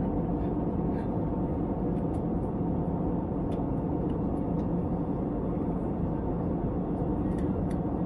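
Steady in-flight cabin drone of an Airbus A321neo: the even roar of engines and airflow heard inside the passenger cabin, with a few faint ticks.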